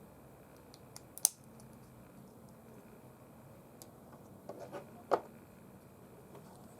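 Sharp little clicks and snaps of small plastic parts and hand tools during the disassembly of a Bluetooth earphone: one sharp snap about a second in, then a short cluster of clicks near five seconds in.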